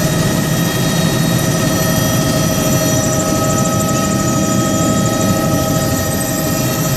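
Helicopter running: a steady, loud engine and rotor drone with several steady whining tones above it.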